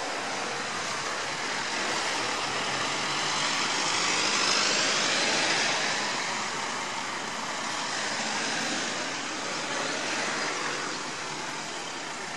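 Road vehicles driving past close by: tyre and engine noise swells to its loudest about four to six seconds in, as a van towing a box trailer goes by, then eases as the convoy moves on.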